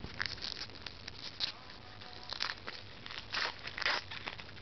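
Baseball trading cards being handled and flipped through, with short, irregular rustling and sliding swishes of card against card.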